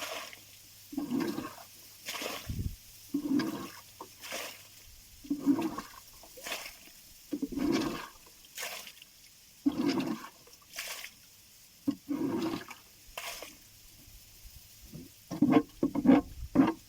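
Rhythmic splashing in lake water, one stroke about every second in an alternating pattern, with a quick run of closer splashes near the end.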